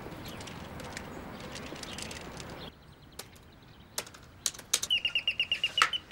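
Faint outdoor ambience gives way to a quiet room with scattered clicks from a laptop keyboard being typed on. Near the end comes a fast run of about ten high chirps.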